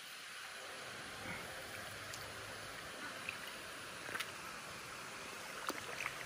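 Steady rush of shallow flowing water, with a few short splashes and clicks from hands working in the water, about four seconds in and again near the end.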